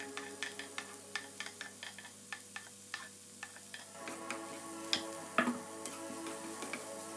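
Background music with a steady ticking beat. About five seconds in come two louder knocks: a plastic spatula striking the frying pan as stirring begins.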